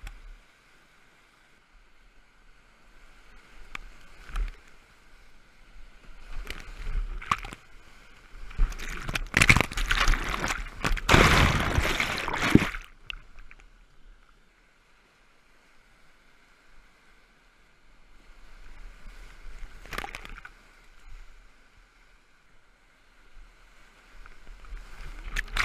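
Kayak running high-water whitewater rapids, with waves breaking over the bow and the camera. Splashes come and go over a steady river rush, and the loudest wash lasts about four seconds near the middle as the camera goes under the whitewater.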